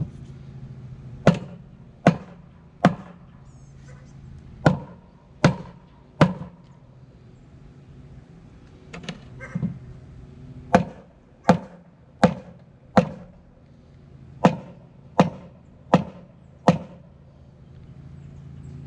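Hammer blows on a wooden board braced against a plastic snap-jacket piling sleeve, knocking the jacket down onto the piling. Sharp knocks come in short runs of three or four, less than a second apart, with two lighter taps midway.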